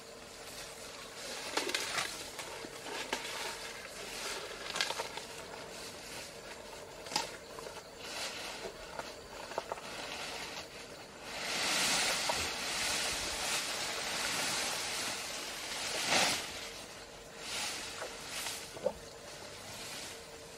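Asian elephant feeding, its trunk sweeping and gathering grass and dry leaves from the ground: irregular rustles and crackles, with a longer, louder rustling stretch about halfway through.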